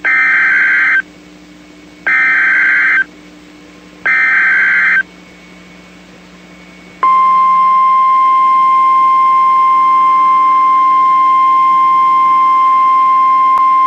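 Emergency Alert System SAME header: three one-second bursts of buzzy, screeching digital data tones, about a second apart, encoding the alert's header for a Civil Emergency Message. About seven seconds in, the steady single-pitch NOAA Weather Radio warning alarm tone begins and holds, signalling that a spoken emergency message follows.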